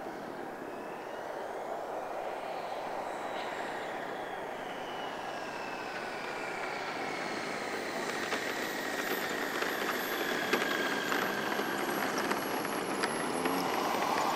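Two large radio-controlled Embraer Tucano models with turboprop engines flying together. Each gives a whining engine and propeller tone that slides slowly in pitch over a steady rush of air, and the sound grows louder toward the end.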